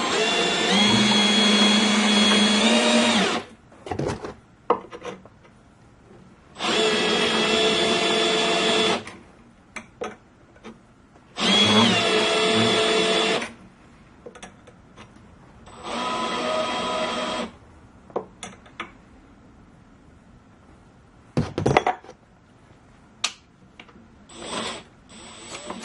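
A power drill driving a homemade coil winder's rod, wrapping 14-gauge building wire in four short runs. The first run lasts about three seconds and the later ones get shorter, each with a brief rise in pitch as it starts, showing the coil is nearly complete. Clicks and taps of handling come between the runs, with a sharper knock near the end.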